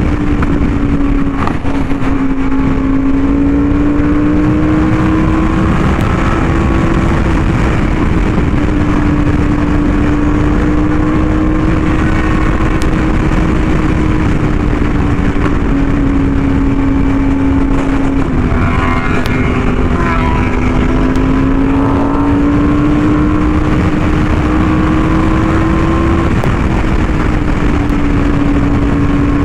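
Yamaha YZF-R1M's crossplane inline-four through an SC Project exhaust, cruising at fairly steady revs with the pitch drifting gently up and down, under a constant rush of wind on the microphone.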